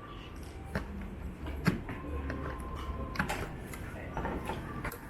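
Scattered clicks and knocks of computer parts being handled, over a low steady hum, with a sharper knock about a second and a half in and another near the middle.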